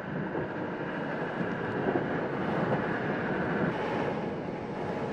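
Steady rumble and rushing of a motorboat running over the water, an inflatable's outboard motor mixed with water noise.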